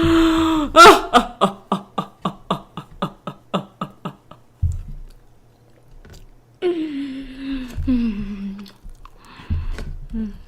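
A person's exaggerated wordless vocal outburst: a held cry breaks into rapid pulsing sobs, about five a second, that die away over three seconds, and after a pause a long wail falls in pitch.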